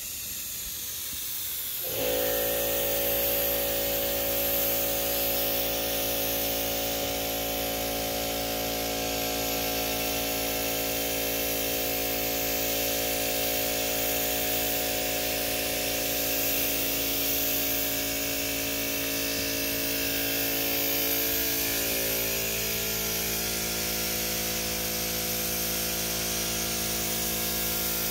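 Gravity-feed paint spray gun hissing steadily as it lays on a first light coat of single-stage paint. About two seconds in, a steady motor hum made of several tones starts abruptly and runs on under the hiss, dipping slightly in pitch near the end.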